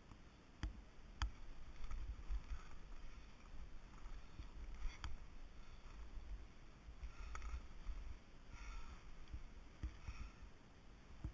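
Sliding edges scraping and swishing through soft snow in a series of turns, each turn a short hiss, with a few sharp knocks and a steady low rumble of wind and handling on the camera mic.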